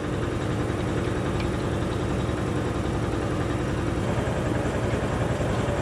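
A steady low machine drone, like an engine idling, with a slight change in its tone about four seconds in.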